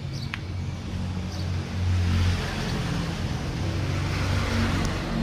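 Street traffic: a steady low engine hum, with a passing vehicle's noise swelling about two seconds in and fading again near the end.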